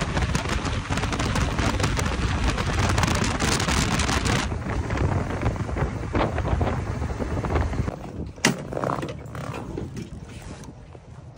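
Wind rushing over the microphone of a motorcycle ridden at highway speed, with road and engine noise under it. After about four seconds it drops to a quieter, duller rumble of slower riding, with a sharp click near the end.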